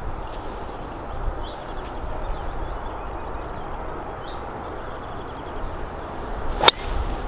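A golf driver striking a ball off the tee: one sharp crack near the end. Under it, a steady outdoor background hiss and a few short bird chirps.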